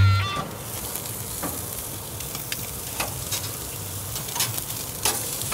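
Game hen pieces sizzling on the hot grate of a propane grill, a steady hiss with scattered sharp pops and crackles.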